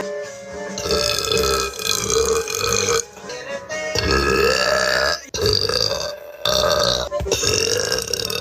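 A woman burping: four or five long, drawn-out burps one after another, each with a wavering pitch and short breaks between them.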